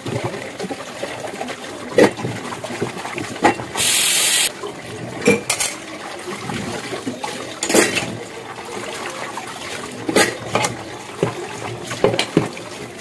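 Hand-washing dishes in rubber gloves: scrubbing and rinsing with water splashing, and dishes and lids knocking and clinking now and then. About four seconds in there is a short, loud hiss lasting under a second.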